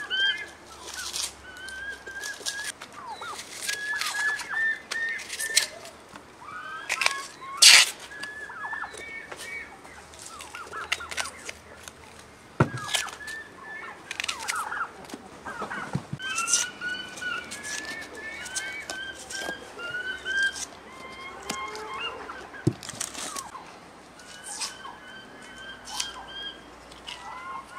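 Birds chirping, with many short repeated calls and some falling ones, and scattered sharp knocks and clicks, the loudest about a third of the way in.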